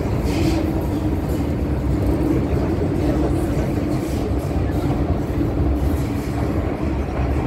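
Interior of an MTR M-Train electric metro train running through a tunnel: a loud, steady rumble of wheels and running gear with a constant drone under it.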